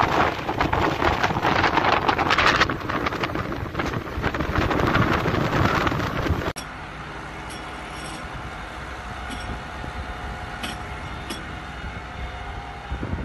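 Loud rushing noise of wind buffeting the microphone, with crackles through it. It cuts off suddenly about six and a half seconds in, giving way to a quieter, steady engine hum with a few isolated clicks.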